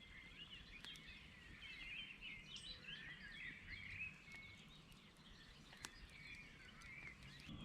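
Faint birdsong: many small birds twittering and chirping at once, with a few faint clicks.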